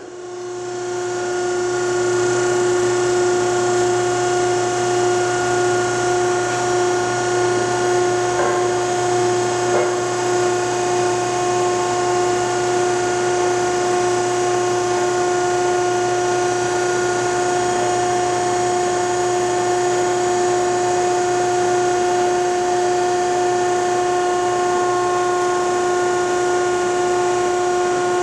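Selco downstroke baler's hydraulic power unit running steadily with no load change: a constant whine and a low hum underneath, switched on at the start.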